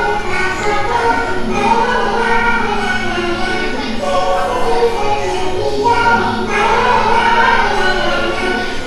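Music with a choir singing a melody, played as the soundtrack of a Christmas projection-mapping show.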